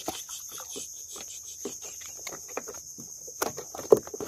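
Steady high-pitched chirring of insects over scattered short clicks and rustles from handling gear on the boat. The sharpest click comes near the end.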